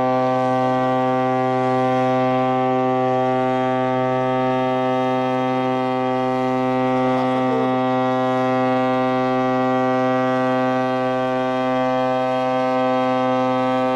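SS Canberra's ship's horn sounding one long, steady, unbroken blast as she departs her berth.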